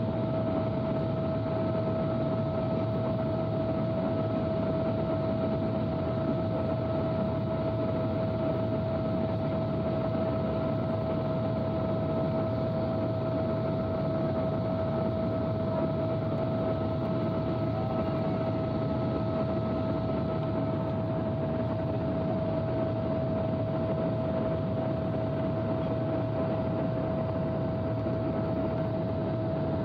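Steady in-flight cabin noise of a Boeing 777-300 at the window seat: an even rush of air and engine noise with a steady high-pitched hum running through it.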